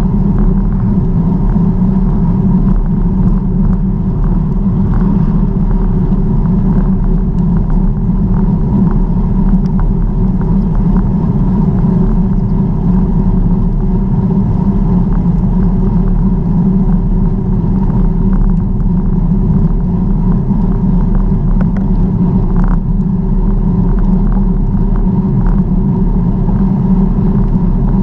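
Steady low rumble of wind buffeting and tyre noise while riding a bicycle, with a few light clicks.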